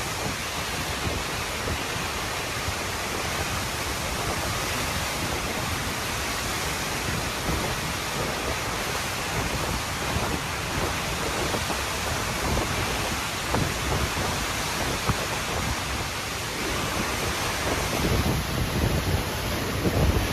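Hurricane Ian's wind and rain: a steady rushing noise, with low gusts buffeting the microphone toward the end.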